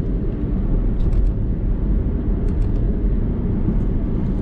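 Steady low rumble of a car in motion heard from inside the cabin, engine and road noise with no change in pitch.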